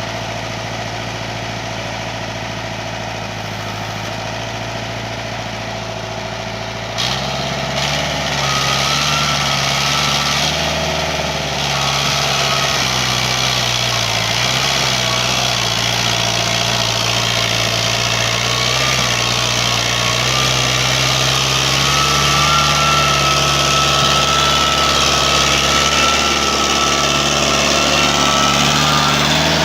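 Lamborghini tractor engine running steadily, then stepping up suddenly to higher revs about seven seconds in and holding there, with a thin whine over the engine.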